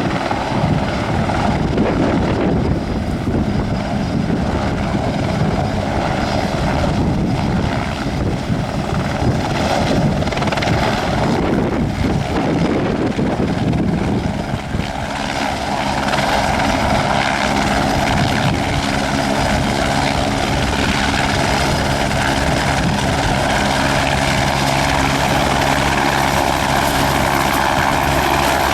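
Aerospatiale AS355F2 Ecureuil 2 twin-turbine helicopter running: main-rotor noise with a faint high turbine whine. The sound is rough and uneven at first, then settles into a steady, even hum about halfway through.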